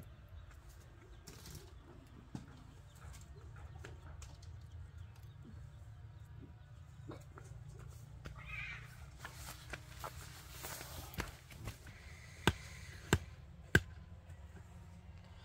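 Low steady rumble with a brief harsh animal call about eight seconds in, then three sharp knocks about half a second apart near the end, the loudest sounds here.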